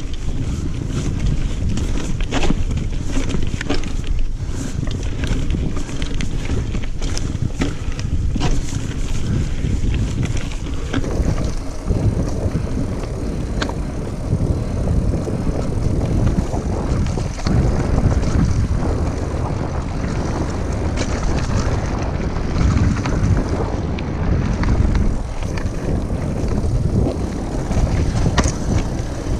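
Wind rushing over an action camera's microphone as a single-speed mountain bike rolls fast over a dirt singletrack, with tyre noise and frequent short knocks and rattles from the bike going over roots and rocks.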